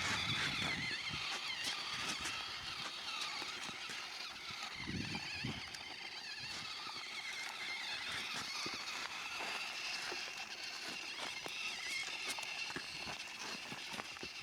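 Small electric motors and plastic gearboxes of RC construction models whining, their pitch wavering as they are driven, with scattered clicks and scrapes and a couple of dull knocks near the start and about five seconds in.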